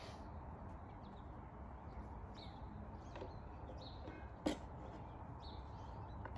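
Birds chirping now and then over a steady low background hum, with one sharp knock about four and a half seconds in.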